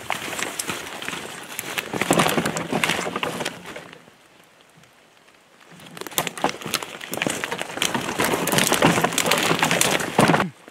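Close rustling and crackling of wet brush and clothing against a moving camera. It comes in two stretches, with a quieter pause about four seconds in.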